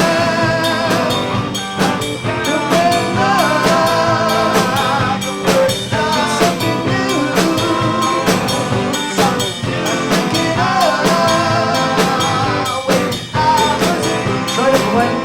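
A rock band playing live in rehearsal: drum kit keeping a steady beat under guitars and a singing voice, stopping right at the end.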